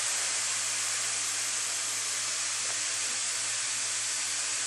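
Truck-mounted carpet extraction vacuum drawing air and liquid through a Waterclaw subsurface extraction tool: a steady hiss of suction with a low hum underneath, as neutralizer and cat urine are pulled up out of the carpet pad.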